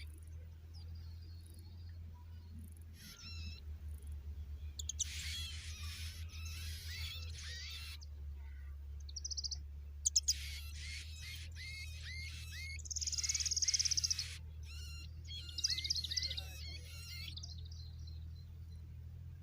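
Nestling birds calling in bursts of high, rapidly repeated chirps, with a loud, buzzy, fast trill of begging calls about two-thirds of the way through. A steady low hum runs underneath.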